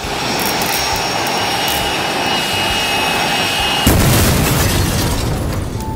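Jet-engine sound effect, a loud steady rushing noise that starts abruptly, with a sudden boom about four seconds in before it fades near the end.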